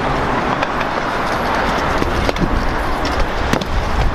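Steady city street and traffic noise with three sharp clacks of a stunt scooter's deck and wheels on pavement.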